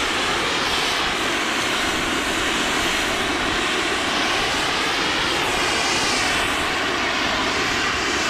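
A snowmaking lance gun spraying, a steady, loud, unbroken rushing hiss.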